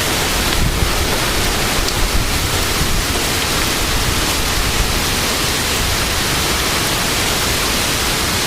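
Heavy thunderstorm downpour: rain pouring down in a loud, steady hiss.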